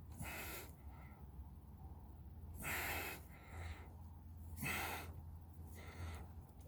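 A man breathing hard with effort: several short, sharp exhales over a low steady hum, while working a power steering hose onto its fitting.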